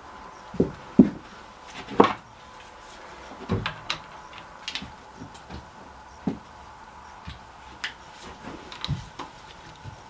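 Irregular tool clinks and knocks from a wrench working loose a connecting rod cap on a Ford 226 straight-six engine, the loudest about one and two seconds in; the cap is snug on the crankshaft.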